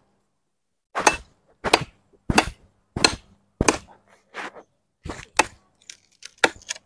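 A katari, a curved billhook blade, chopping into a dry fallen tree branch: about ten sharp, separate chops at roughly two-thirds of a second apart, with a few weaker blows and two quick strikes near the end.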